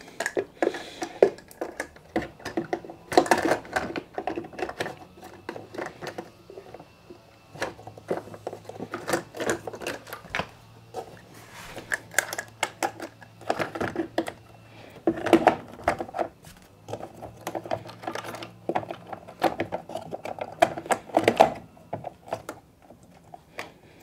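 Plastic clicks, knocks and rattles from hand-refitting the condenser dryer's water-level float assembly into its plastic base housing, coming in irregular clusters.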